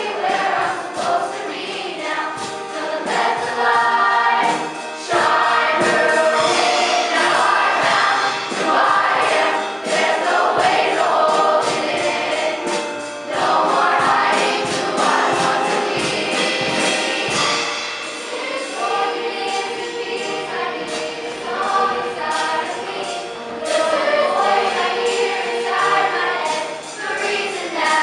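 A choir singing, several voices holding and changing pitches together without pause.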